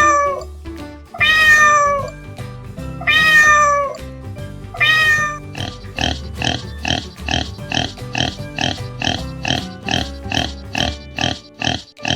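Domestic cat meowing: four loud, drawn-out meows, each falling in pitch, then a quick run of short calls, about two or three a second, over light background music.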